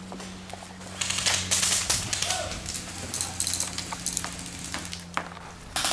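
Airsoft guns firing in rapid runs of sharp clicking shots, starting about a second in, under a steady low hum.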